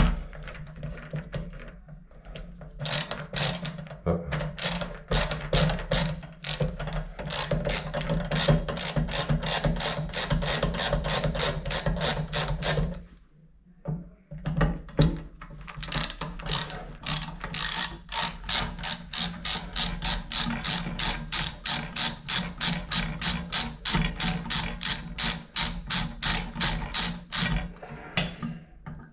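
Hand ratchet clicking in steady back-and-forth strokes, about two to three clicks a second, with a short pause about halfway. The clicking is a ratchet tool working a fastener loose to take off the shower valve's cover.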